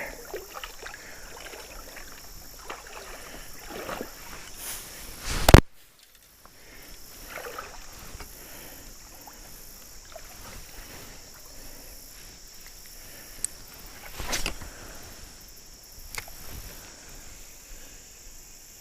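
Stream water splashing and sloshing, with a loud sudden thump about five and a half seconds in and a few smaller knocks later on.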